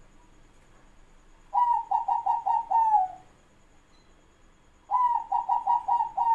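Zebra dove (perkutut) cooing: two song phrases, each a quick run of about six short notes ending in a longer, falling note, the first about a second and a half in and the second near the end.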